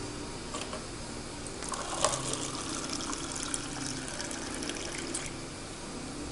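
Water running from the tap of a glass drink dispenser into a paper cup for a few seconds, with a sharp click about two seconds in.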